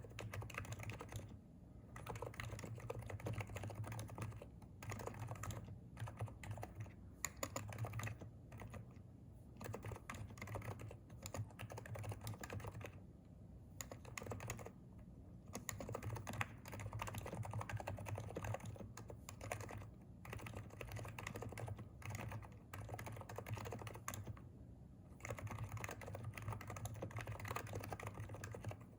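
Typing on a Hansung electrostatic capacitive (Topre-style) keyboard: runs of quick keystrokes broken by brief pauses every few seconds.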